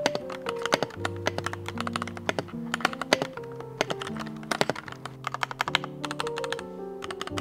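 Typing on a Keydous NJ80 mechanical keyboard with Gateron Yellow linear switches: a fast, uneven patter of key clicks, with soft background music under it.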